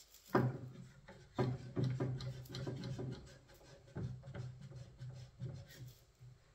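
A one-handed bar clamp being put on and tightened at the bottom of a kitchen cabinet, giving a run of irregular clicks and knocks against the cabinet.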